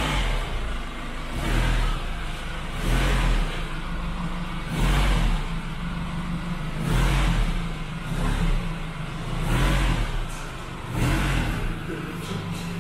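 Nissan Navara pickup's engine running at low speed, rising and falling in surges every couple of seconds as the truck creeps forward.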